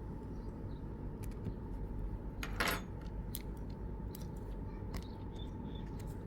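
Small metal tools ticking and clicking against the tiny screws and metal plate of an iPhone 6s screen assembly while the screws are taken out, with one brief louder scrape about two and a half seconds in. A steady low hum lies underneath.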